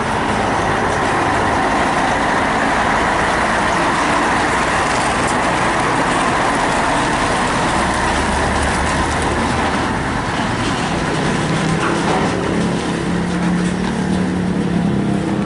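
Heavy diesel trucks hauling crane sections driving past close by, their engines running loud and steady. A lower engine hum comes up about eleven seconds in.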